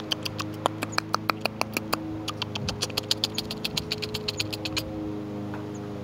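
A fast run of lip-smacking clicks, about eight to ten a second, made to imitate a parent bird's signal that food is ready and coax a nestling to take a roach. The clicks stop about five seconds in, over a steady low hum.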